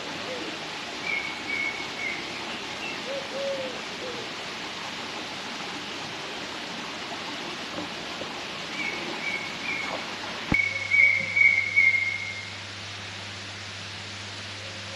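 Bird calls: a few short high chirps, then a longer high call held for about two seconds past the middle, over a steady background hiss.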